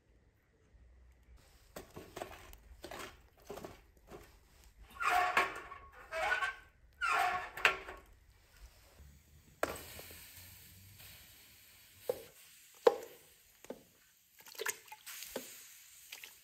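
Knocks and scrapes as firewood is handled at a metal drum fire stove. Then a steady hiss begins, and several sharp thunks follow as pieces of cow leg are dropped into the metal cooking pot.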